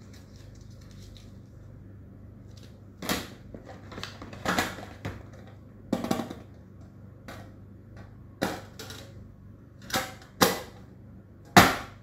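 A hard pencil case and the stationery box's tray clacking as they are handled and set down. About seven sharp knocks come after a quiet first three seconds, the loudest just before the end.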